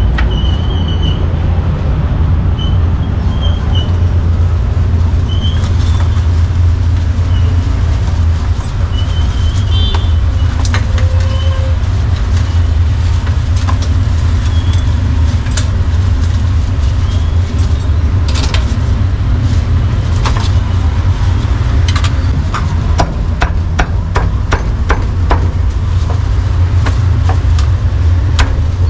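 Steady rumble of street traffic with passing motorbikes and cars. Over it, a cleaver chops a roast duck on a thick wooden block: sharp knocks, scattered at first, then coming in quick runs through the second half.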